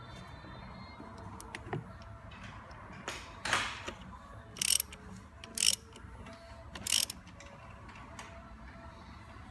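Socket ratchet on a long extension clicking as it tightens the plastic oil filter housing cap, in four short bursts of rapid clicks between about three and seven seconds in.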